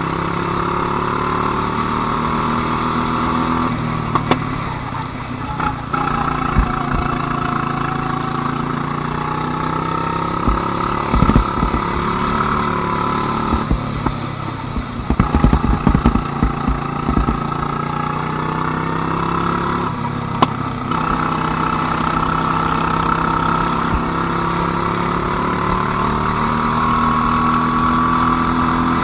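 Go-kart engine running on track, its pitch repeatedly rising and falling as the revs change, with a few sharp knocks and rattles scattered through.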